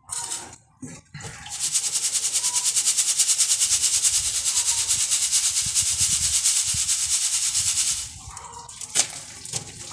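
Damp fine sand being shaken in a round wire-mesh sieve: a fast, even rasping hiss that runs for about six seconds and stops near the end. A couple of clinks of a scoop in a bucket come just before it.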